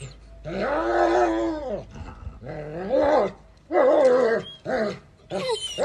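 German shepherd dog vocalizing in about five drawn-out calls that rise and fall in pitch, the first and longest lasting about a second and a half, then shorter ones in quick succession.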